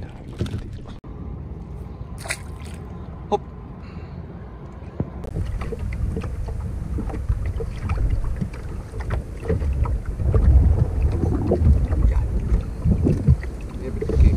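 Wind buffeting the microphone on an open fishing boat, a steady low rumble that grows louder in the second half, with a few small clicks and knocks.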